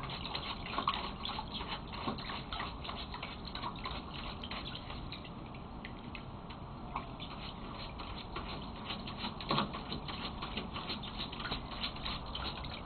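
Small Papillon dog digging with its front paws in shallow water in a plastic wading pool: quick, uneven splashing and pattering of water, with a slightly louder flurry of splashes about two-thirds of the way through.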